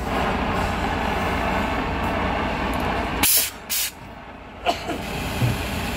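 Lit oxy-acetylene cutting torch burning with a steady rushing hiss while the flame is adjusted. About three seconds in come two short loud bursts, and after them the sound is quieter.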